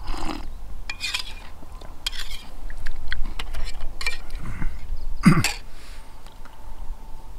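Light clinks and knocks of a spoon and tableware during a camp meal, a scatter of short sharp clicks, with a louder brief sound falling in pitch about five seconds in.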